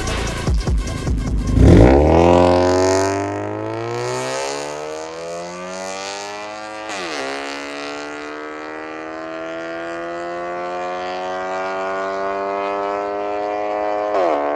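Honda Civic 1.8 four-cylinder with an MS-R valved aftermarket exhaust, accelerating hard. The exhaust note climbs steadily in pitch, drops at an upshift about seven seconds in, then climbs again to another shift at the very end. Electronic music with a beat plays over the first two seconds.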